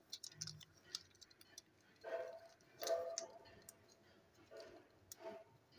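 Faint clicks and light rustling from plastic toy train cars and their clear plastic bag being handled, with a few soft knocks scattered through.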